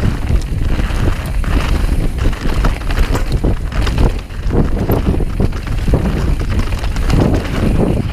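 Mountain bike descending fast over a rough gravel and dirt trail: the tyres rumble over the loose surface and the bike rattles and clatters with many small knocks, under heavy wind buffeting on the microphone.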